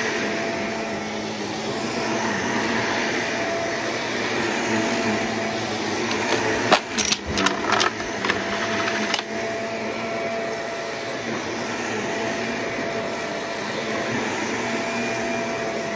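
Shark upright vacuum cleaner running steadily over carpet, its motor humming with a few held tones. About six and a half seconds in, a quick cluster of sharp crackles and clicks, with one more a little later, as debris crunches up through the nozzle.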